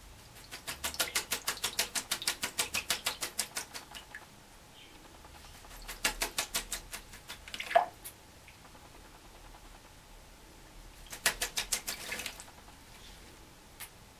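Wet red-crowned parakeet bathing in a sink, making three bursts of rapid, even pulses, about eight a second, the first the longest. A short falling note about eight seconds in is the loudest sound.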